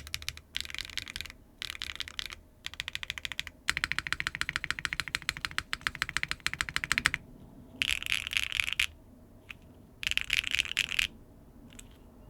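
Typing on a Neo 75 CU mechanical keyboard with HMX Cream Latte linear switches, a carbon fiber plate, no foam and Kikobo Soju keycaps. Short runs of keystrokes lead into a long fast run, then two brief dense bursts of key clatter about two seconds apart.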